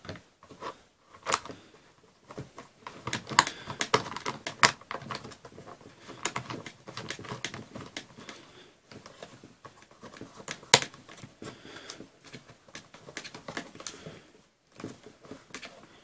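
Irregular clicks, knocks and scrapes of hard plastic being handled as an FPV monitor and its wooden mount are fitted onto a radio controller's handle, with one sharper click about two-thirds of the way through.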